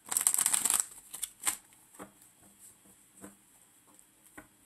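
Deck of cards shuffled in a quick flurry of rapid riffling clicks lasting under a second, followed by a few single soft card snaps and taps as the deck is handled.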